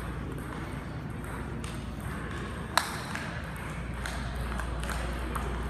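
Table tennis balls clicking off bats and tables at several tables in a large hall, in an irregular scatter of light taps, with one louder, sharper click about three seconds in.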